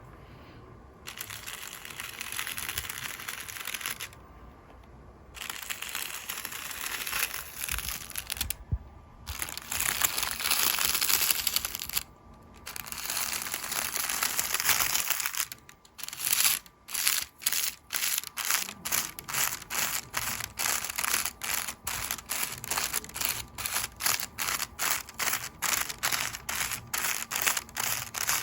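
Makeup brush bristles sweeping over crinkly paper, giving a crisp rustling hiss in long strokes with short pauses between them. About halfway through it turns to quick short dabs at roughly two or three a second, each a sharp crinkle.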